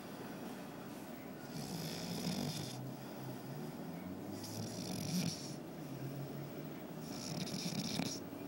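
A man snoring in his sleep: three long snores, one about every three seconds, each a low rumble with a hissing rush of air.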